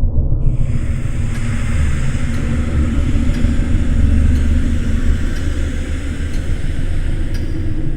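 Deep, steady rumbling drone with a hiss that swells in about half a second in, and faint ticks about once a second.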